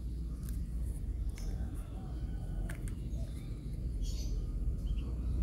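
Handling noise from a plastic headlamp turned over in the hand: about four light clicks and scrapes over a steady low rumble.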